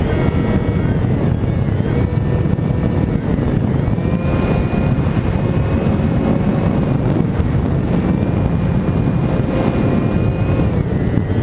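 Radio-controlled model airplane's motor and propeller running with a thin whine that shifts in pitch a few times, under heavy wind rush on the microphone.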